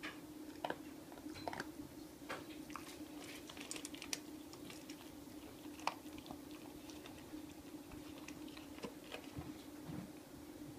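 Great Pyrenees puppy crunching and chewing dry kibble from a stainless-steel bowl, in irregular sharp crunches.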